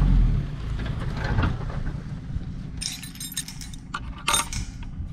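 A vehicle engine running with a low, steady rumble that drops in level just after the start. There are two short bursts of metallic jangling and clinking, about three and four seconds in.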